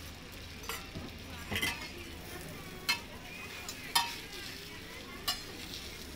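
Thai roti frying on a flat round griddle, sizzling steadily, with several sharp metal clinks of a spatula, fork and small metal bowl against the griddle, the loudest about four seconds in.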